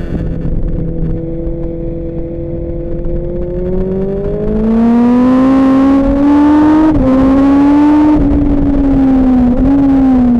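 Superbike engine running at a steady note, then accelerating hard from about four seconds in, its pitch rising and getting louder. It drops briefly at two gear changes, about seven seconds in and again near the end.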